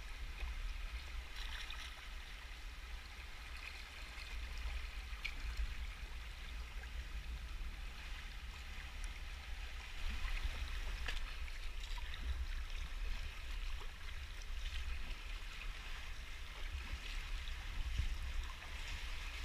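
Fast-flowing sea water rushing and gurgling around a sea kayak, with a few light paddle splashes and a low steady rumble underneath.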